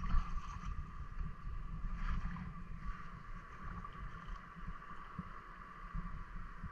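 Wind rumbling on the microphone over light sloshing of shallow water, with a faint steady high hum running underneath.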